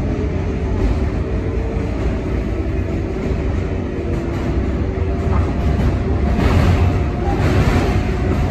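Running noise inside an R142A subway car in motion: a steady low rumble of wheels and running gear, with faint steady tones above it. A few brief louder patches of rail clatter come near the end.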